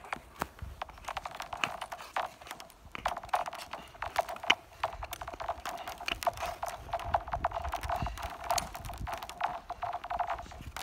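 Skate blades and pole tips on thin, clear lake ice: a dense run of sharp clicks and scrapes from pole plants and skating strokes. The thin ice rings with a high ping under each stroke.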